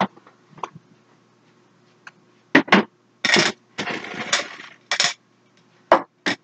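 Makeup products and their cases clicking and clattering as they are picked up, shuffled and set down: a string of sharp knocks, with a longer rattling scrape about four seconds in.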